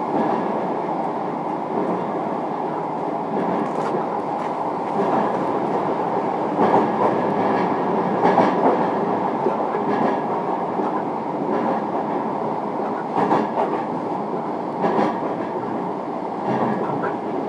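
Running noise inside a JR Kyushu 305 series electric train motor car travelling at speed: a steady rumble of wheels on rail. Clicks of the wheels over rail joints recur about every second and a half to two seconds.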